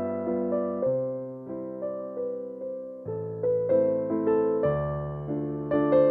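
Background music played on a piano or electric piano: gentle melody notes struck and fading over sustained low bass notes that change every second or so.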